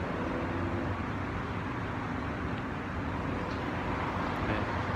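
Steady road traffic noise: an even rumble with no distinct events.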